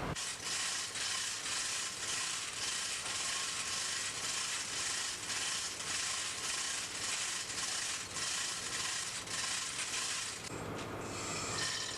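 Metal ratchet mechanism clicking in a steady run of strokes over a hissy mechanical background, with a lower rumble joining near the end.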